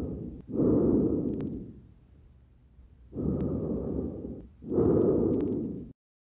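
Simulated lung sounds of pneumonia heard through a stethoscope: two breaths, each a rushing noise in two parts, with a few sharp clicks over them. The sound cuts off abruptly near the end.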